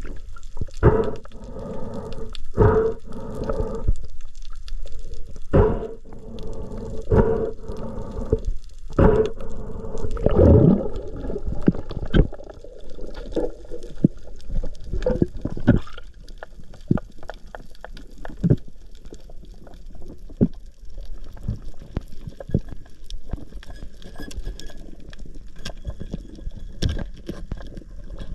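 Muffled water sounds, as heard underwater, with frequent sharp clicks and pops. A few muffled pitched sounds come in the first half, then fade to quieter clicking.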